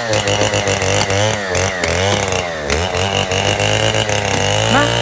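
Chainsaw cutting through a log for firewood, its engine pitch rising and falling over and over as it revs and bogs in the cut.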